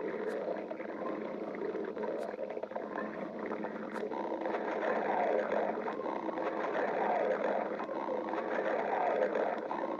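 A person's stomach growling: a continuous, shifting rumble that swells a little louder from about five seconds in, with a few light clicks in the first four seconds.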